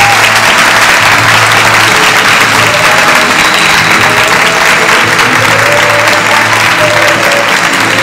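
Audience applauding steadily and loudly over background music.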